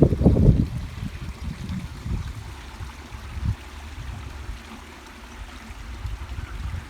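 Wind buffeting the microphone outdoors: a low, gusting rumble, strongest in the first second, then settling to a steadier low rumble.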